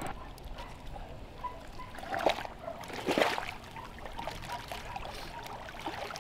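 Shallow lake water splashing and trickling, with two louder splashes about two and three seconds in.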